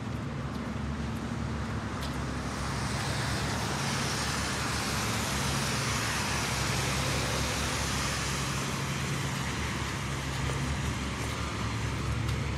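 Road traffic on a wet street: car tyres hissing on the wet asphalt, the hiss swelling about two seconds in and thinning toward the end, over a low steady hum.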